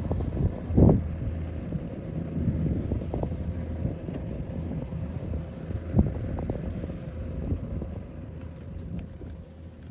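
Kubota combine harvester's diesel engine running with a steady low hum as it cuts rice, with wind buffeting the microphone in short low thumps, the loudest about a second in and at six seconds.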